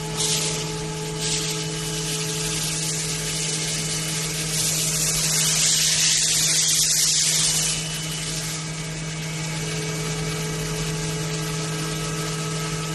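CNC milling machine running while machining an aluminium case: a steady hum with several constant whining tones, overlaid by bursts of high hiss, the longest and loudest about four and a half to seven and a half seconds in.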